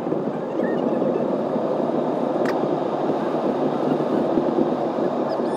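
Steady road and tyre noise heard from inside a moving car, with one sharp click about two and a half seconds in.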